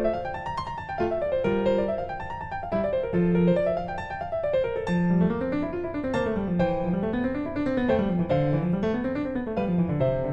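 Piano music of rising and falling arpeggios in an even, repeating pattern, joined about halfway through by a second, lower line of arpeggios.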